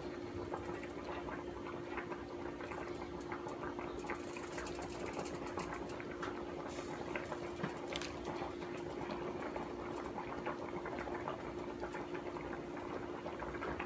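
Pork steaks with onions and green peppers simmering on medium in a deep sauté pan, the juices bubbling and crackling as the meat cooks down, with small clicks of a spoon skimming grease off the sides. A steady low hum runs underneath.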